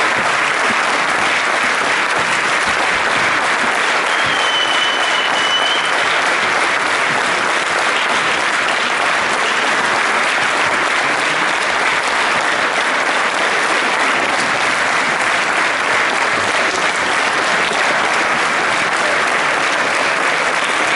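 Audience applauding steadily, a dense, even clapping from many hands that doesn't let up.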